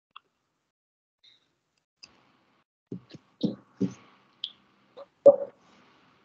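A handful of short clicks and knocks with silence between, mostly in the second half, the loudest about five seconds in: handling noise picked up by a video-call microphone.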